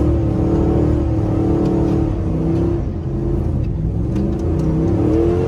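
Dodge Ram 1500's 5.7-litre Hemi V8 heard from inside the cab, revving up and down as the truck slides in the snow; the engine note drops about three seconds in and climbs again near the end.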